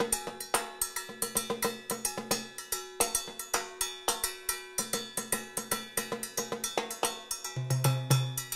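Sticks playing a fast, steady rhythm on a cowbell and a block mounted on a Pearl Primero timbales set. In the last second, louder strikes on the timbale heads ring out underneath.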